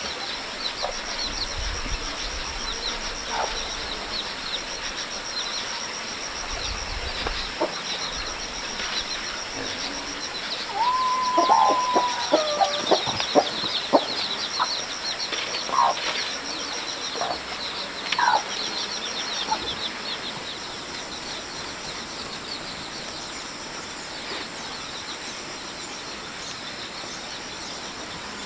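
Outdoor ambience with a steady high insect chirring. About a third of the way in, a bird gives a short run of calls, with more single calls and a few sharp knocks following over the next several seconds.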